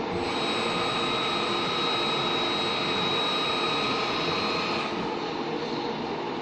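CNC gear shaping machine running: a steady mechanical noise with a high whine over it that dies away about five seconds in.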